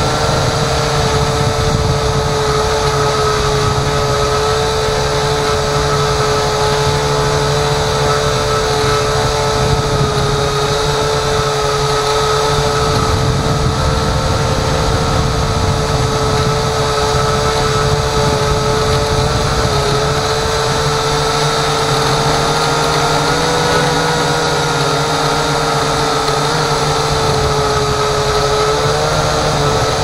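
A drone's electric motors and propellers, heard from the camera on board, whining steadily in flight at one held pitch that shifts slightly a few times, over a low rumble.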